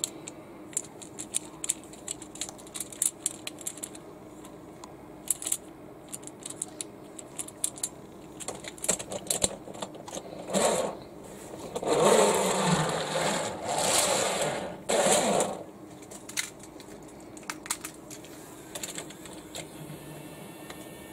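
Wooden toy train car clicked and clacked in the hands and set on a toy track, then pushed by hand so its wheels roll noisily along the curved track for a few seconds in the middle. A few light clicks follow near the end.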